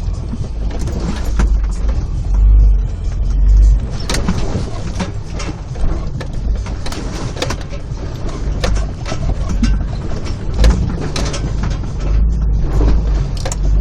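Four-wheel-drive vehicle's engine running at low speed as it crawls over creek rocks, a steady low rumble with scattered knocks and clunks.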